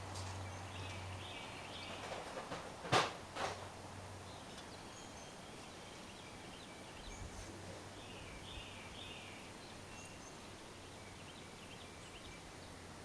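Quiet outdoor ambience with faint birds chirping again and again, and two sharp knocks about three seconds in.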